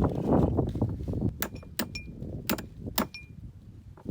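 Hammer striking steel on a combine corn head: four sharp metallic hits, some leaving a short ring, after a second or so of low scuffling and handling noise. They are blows knocking old bushings out of their holes.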